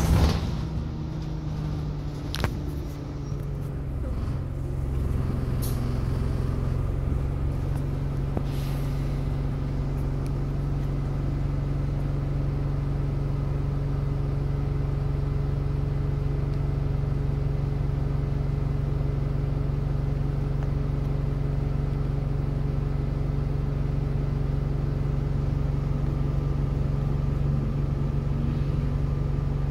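Enviro200 single-deck bus's diesel engine idling steadily, heard from inside the passenger saloon. There is a sharp knock at the very start and another about two seconds in.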